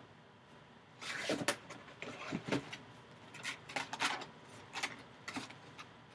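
Hands handling a cardboard product box, its flap and lid brushing and tapping: a string of short scrapes and light knocks that starts about a second in.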